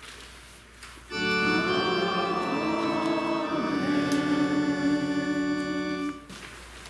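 Church organ playing sustained chords for about five seconds, starting about a second in, with one chord change midway before it stops.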